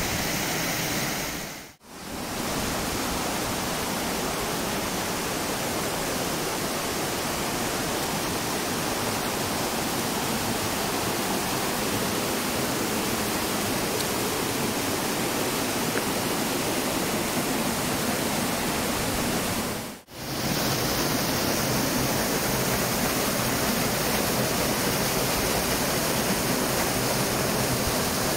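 Mountain stream pouring down a small waterfall and over rocks: a steady, loud rush of falling water that drops out for a split second twice.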